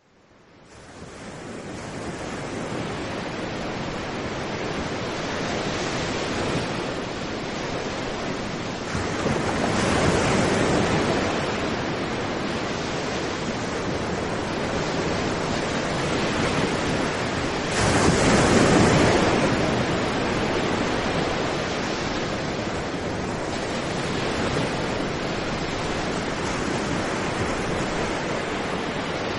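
Surf breaking and washing up a sandy beach: a continuous rush of waves and foam that fades in over the first couple of seconds, swelling louder as waves break about ten seconds in and, loudest, a little past the middle.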